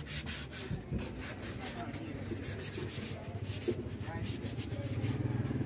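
Hand rubbing a carved wooden table leg with quick back-and-forth strokes, a dry scratchy rasp repeated several times a second. A low steady hum grows louder near the end.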